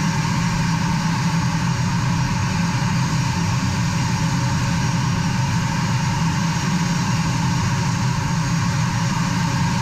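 A-10 Thunderbolt II's twin General Electric TF34 turbofan engines running steadily while taxiing, heard from the open cockpit: a steady low rumble with a steady whine above it.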